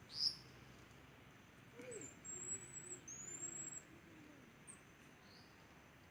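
Marmoset calls: a sharp, short high chirp, then about two seconds in two long, thin, high-pitched whistles, each held about a second, over a low warbling sound.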